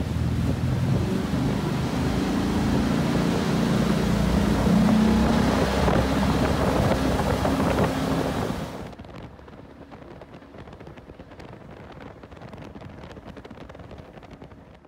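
Jet-drive patrol boat powered by a 6.2-litre Ford V8, running at speed: a steady engine hum mixed with wind on the microphone and rushing water from the wake. About nine seconds in, the sound drops abruptly to a much quieter hiss with faint ticks.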